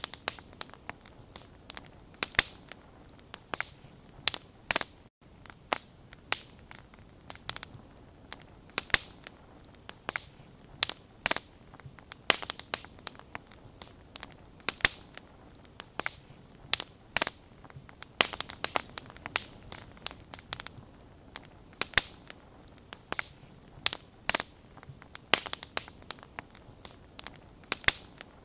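Wood campfire crackling: sharp, irregular pops and snaps, often about one a second and sometimes in quick clusters, over a faint steady hiss of burning.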